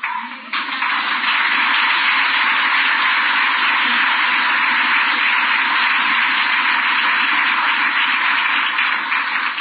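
Audience applauding, a dense clapping that swells about half a second in, holds steady and tapers off near the end.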